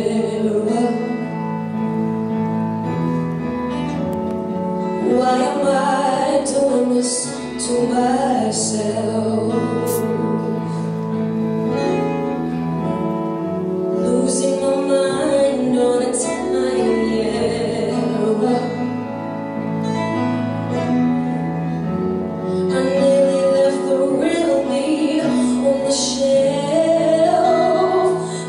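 Recorded song playing as the dance accompaniment, with a woman singing over an instrumental backing.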